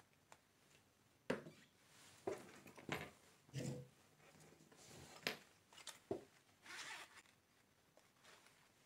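Handling noises: a string of short clicks, knocks and rustles as small objects are set down and picked up, with one run of rustling near the end.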